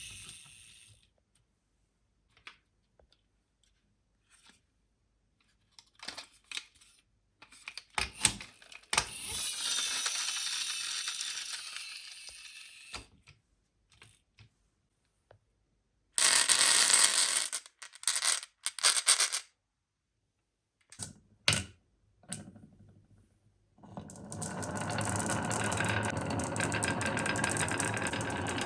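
Marbles running down a course of rain-gutter and wooden-rail track: sharp clicks and clatters as they drop and strike the pieces, and stretches of steady rolling noise, with quiet gaps between runs.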